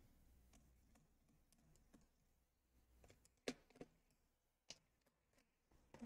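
Near silence broken by a few faint clicks of small metal laptop screws being handled and set down, the loudest about halfway through.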